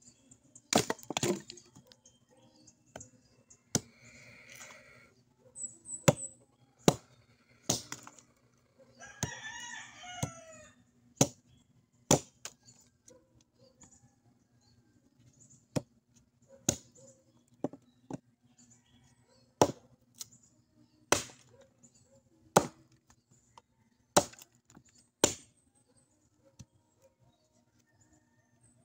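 Firewood being split by hand with a chopping blade: about twenty sharp, separate chops at an uneven pace, roughly one a second. A rooster crows once, about nine seconds in.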